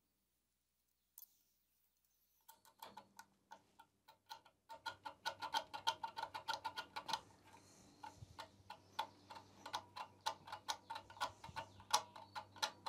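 A small points file scraping back and forth across the rusty contact breaker points in the flywheel magneto of a 1966 British Seagull two-stroke outboard, cleaning them so the magneto will spark. The file strokes are short and quick, about four a second. They begin about two and a half seconds in, stop briefly near the middle, and carry on to the end.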